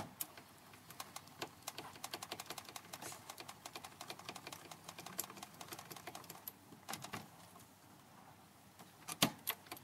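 A rapid run of light metallic clicks and ticks from hand adjustments on a small home-built metalworking machine while it stands stopped. The clicking thins out after about six seconds, and a few sharper clicks come near the end.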